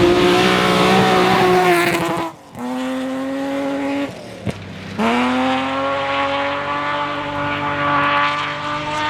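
Historic rally car engine pulling hard at high revs. The engine note cuts off briefly about two seconds in and again around four seconds, with a single sharp crack in the second gap, then it picks up and pulls steadily again.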